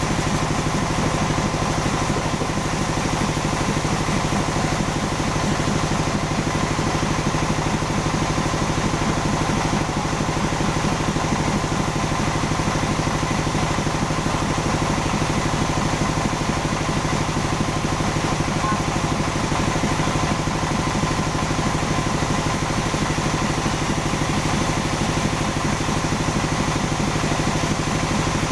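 Sawmill machinery running steadily: an engine hum with a rapid, even pulse that holds the same pitch throughout, with no rise or fall in speed.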